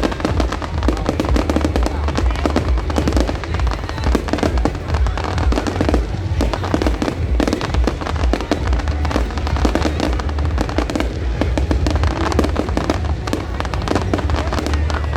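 A fireworks display going off continuously: rapid, overlapping bangs and crackles with a deep booming rumble underneath, with no pause.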